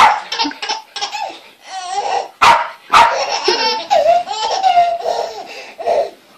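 A dog barks a few times, short and sharp, and a baby laughs in long giggling stretches between the barks.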